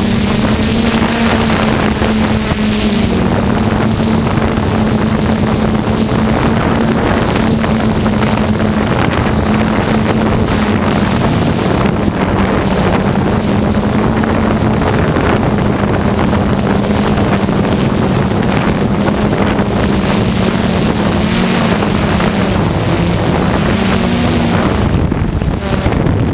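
DJI F550 hexacopter's electric motors and propellers buzzing steadily, heard up close from the camera on board, over a heavy rush of wind and prop wash. The buzz wavers and dips in pitch briefly a few times as the throttle changes.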